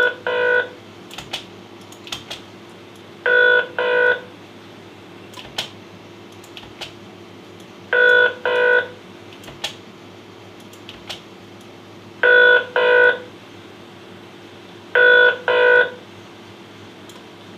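Telephone ringing tone sound effect in paired rings (ring-ring), each pair a fraction of a second long. It comes five times with pauses of two to four seconds between.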